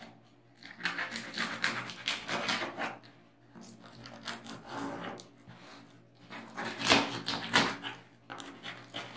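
Packing tape on a cardboard box being slit with a knife and pulled at by hand: a series of short scraping and tearing strokes on the cardboard, loudest near the end.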